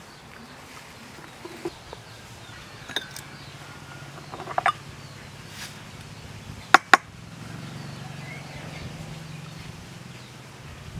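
Light taps and clinks of a metal spoon against a ceramic bowl and a stainless steel tray while salt is scooped, with two sharp clinks in quick succession about seven seconds in.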